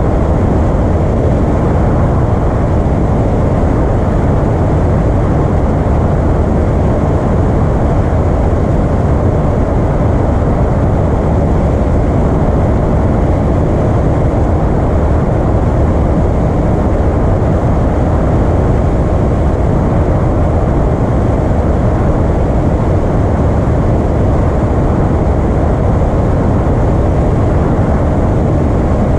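Steady drone of a Piper Arrow's piston engine and propeller, running at an unchanging power setting.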